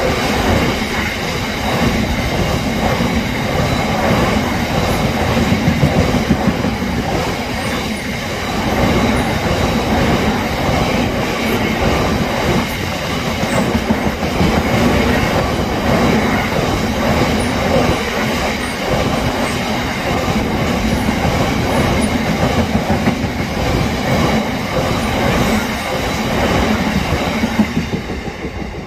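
Freight train wagons rolling past at speed, their wheels clattering rhythmically over the rail joints. The sound stays loud and steady, then starts to fade about a second before the end as the train draws away.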